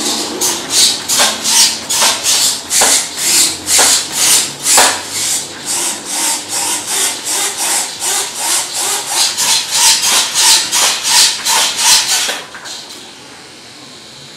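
Quick, even rubbing or scraping strokes, about two to three a second, that stop about twelve seconds in.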